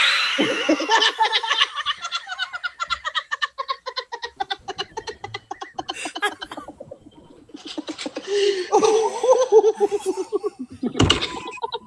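People laughing in rapid, pulsing bursts of laughter, with a short lull a little past the middle before the laughter picks up again.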